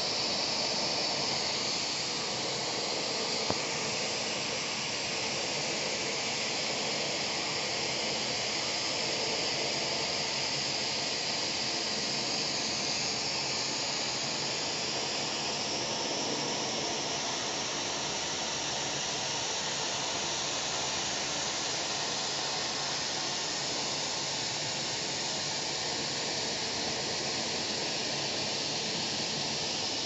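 Steady, even hiss of rushing air that does not change over the whole stretch, with one faint click about three and a half seconds in.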